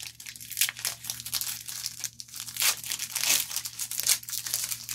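Foil wrapper of a Chronicles Draft Picks football card pack being torn open and crinkled by hand: a run of irregular crackles and rips.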